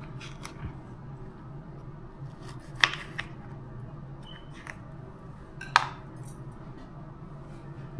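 Kitchen utensils clicking and clattering: two sharp clicks about three seconds apart and a few lighter ticks, over a steady low hum.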